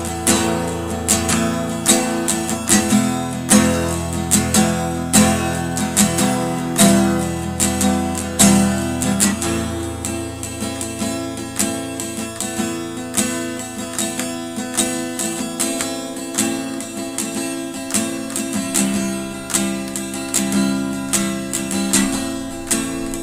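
Background music: a strummed acoustic guitar playing in a steady rhythm.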